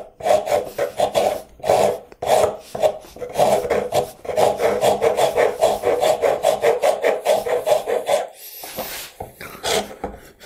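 Rasp being pushed in quick, rhythmic strokes across the end grain of a white oak hand-plane tote, cutting away material to facet the end into an octagon. The strokes come a few a second, run together faster in the middle and break off briefly about eight seconds in before starting again.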